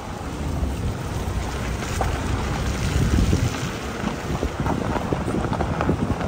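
A vehicle running over a rough, rocky gravel road, with a steady low rumble, wind buffeting the microphone and irregular knocks and rattles from the jolting ride.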